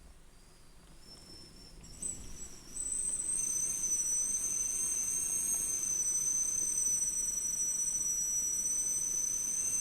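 Strong wind whistling through a gap around a window or door: a high, steady whistle that steps up in pitch and loudness over the first few seconds, then holds loud.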